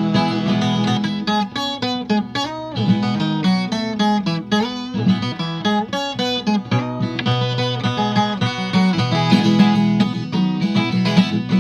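Viola caipira, the Brazilian ten-string folk guitar, playing an instrumental passage of quick plucked notes and strummed chords.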